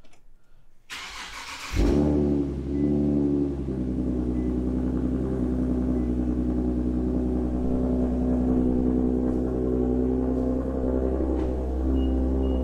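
2011 Infiniti G37S's 3.7-litre V6, fitted with 3-inch intakes, is cranked by the starter about a second in and catches almost at once. It flares up briefly, then settles into a steady idle.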